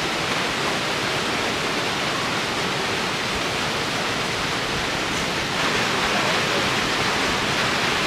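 Steady rushing of river water pouring through a rocky punchbowl, an even continuous wash of sound.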